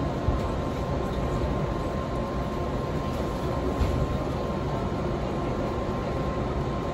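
Electric train running, heard from inside the carriage: a steady rumble of wheels on rail with a constant high hum and a couple of short knocks.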